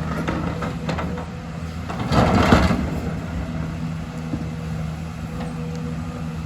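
Excavator's diesel engine running steadily, with a loud noisy rush lasting under a second about two seconds in.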